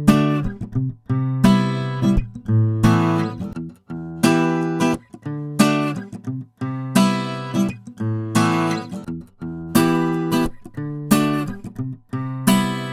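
Martin acoustic guitar strummed, one chord about every second and a half, each left ringing and fading before the next.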